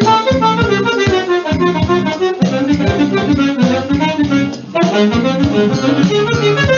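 Alto saxophone playing a stepping melody over a backing track of bass and drums, with a short break about two-thirds through.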